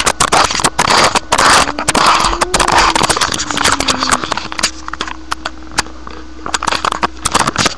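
Handling noise from a webcam being moved and turned by hand: dense clicking, scraping and crackling rubs on its built-in microphone.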